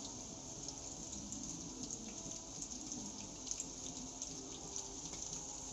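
Flour-coated sweet corn kernels deep-frying in hot oil: a steady sizzle with fine crackles. The sizzle shows the corn is still cooking; the cook waits for it to die down before taking the corn out.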